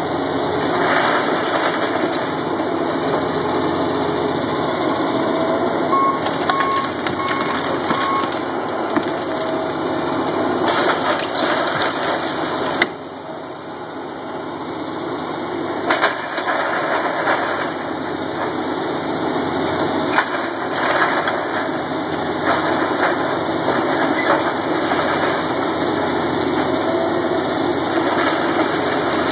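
CAT tracked excavator's diesel engine running steadily under load as it tears down a wood-frame house, with sharp cracks and crunches of splintering timber and debris now and then.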